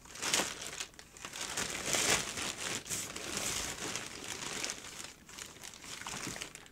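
Thin plastic carrier bag crinkling on and off as hands rummage inside it.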